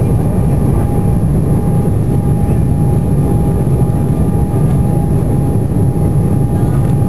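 Jet airliner's engines at takeoff thrust, heard from inside the cabin during the takeoff roll and liftoff: a loud, steady roar with a thin, steady whine above it.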